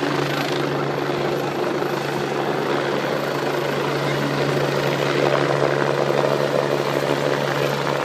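Aircraft engine running steadily: a constant low hum with a loud rushing noise over it.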